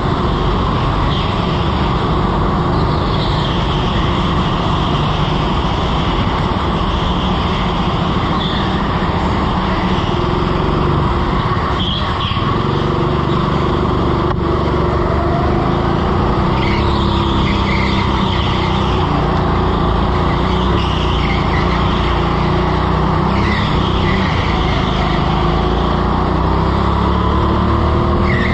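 Go-kart heard onboard while lapping an indoor track at speed: a steady loud motor and rushing noise, with short tyre squeals recurring through the corners every few seconds.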